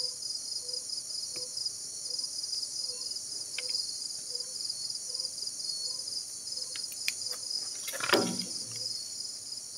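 Night chorus of crickets and other insects: a steady high chirring with a fast pulsing trill. Under it a low note repeats about twice a second, a few sharp clicks sound, and about eight seconds in there is one loud swish that falls in pitch.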